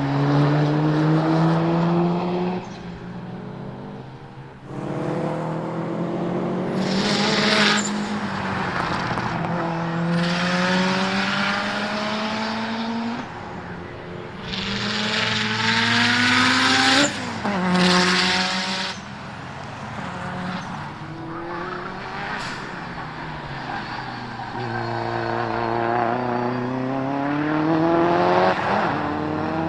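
Rally-style cars lapping a race circuit: engine notes rise and fall in pitch through gear changes, with several loud passes close by.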